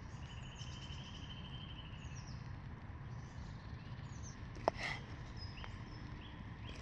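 Quiet woodland ambience with faint bird calls: a trill lasting about two seconds near the start and a few short, high chirps. A single sharp click comes about two-thirds of the way through.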